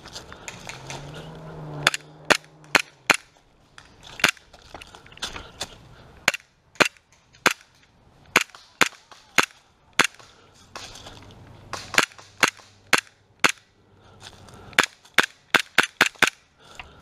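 Gas blowback airsoft pistols firing: about two dozen sharp shots from about two seconds in, some single and some in quick runs of two to four, with a rapid string near the end.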